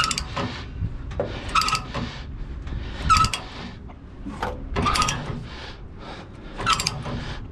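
Screw-type ratchet chain binder being cranked tight on a tie-down chain: about five handle strokes, each a cluster of metallic ratchet clicks, with the chain links clinking and briefly ringing.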